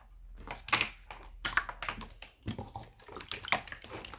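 Slime being squeezed and kneaded in the hands, making a fast, irregular crackle of small sticky pops and clicks.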